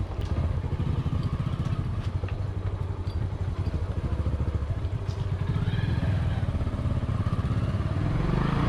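Single-cylinder motorcycle engine running at low speed with a steady, rapid putter, as the bike is turned back from a dead-end road.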